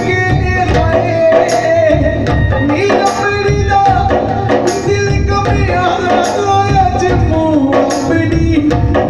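A man singing a Hindi/Punjabi devotional bhajan through a microphone and PA, backed by a steady hand-drum rhythm.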